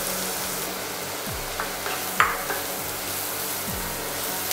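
Sliced mushrooms sizzling in a hot frying pan of garlic, butter and mint as they are stirred with a wooden spatula. A few knocks of the spatula against the pan, the sharpest about two seconds in.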